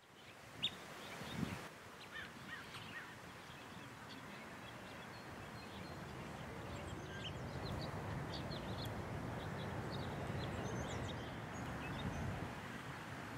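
Many short, high bird chirps and calls from several birds, scattered over a steady background hiss that grows a little louder. Two brief thumps stand out in the first couple of seconds.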